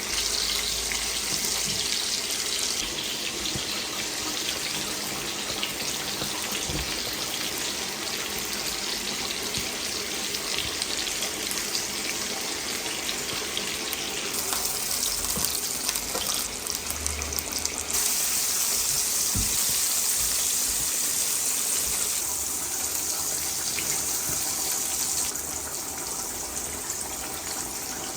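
Tap water running into a sink, the flow getting stronger and weaker several times, with a few faint knocks.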